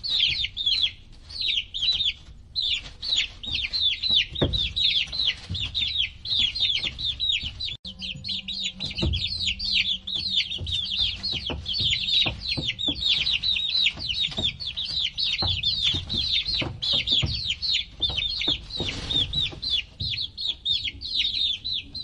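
A group of baby chicks peeping continuously: many short, high calls that each drop in pitch, overlapping in a steady chorus, with a few soft knocks underneath.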